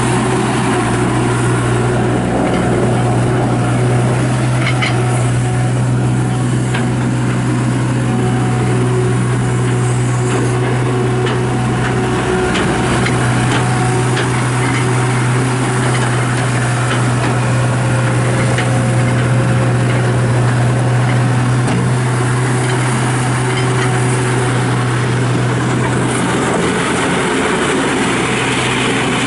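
Turbo diesel engine of a 2003 John Deere 250 skid steer loader running steadily, with a strong low hum that holds its pitch throughout.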